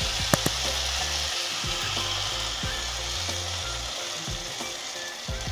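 Water poured from a steel bowl into a hot pan of sautéed rice and vegetables, with a steady hissing sizzle and the splash of the pour that eases slightly near the end. There are two light clicks about half a second in.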